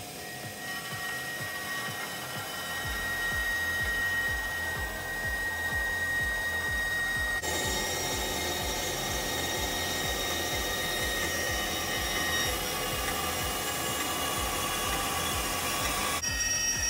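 Large vertical bandsaw cutting through metal plate, running steadily with a high whine; the cutting noise grows louder and fuller about seven seconds in.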